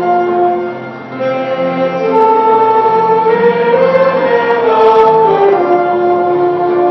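Amateur church choir singing a hymn in several voices, in long held notes, with a brief break between phrases about a second in.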